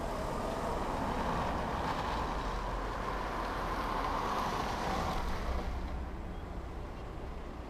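A car passing close by and driving away, its engine and tyre noise steady for about five seconds and then dying away.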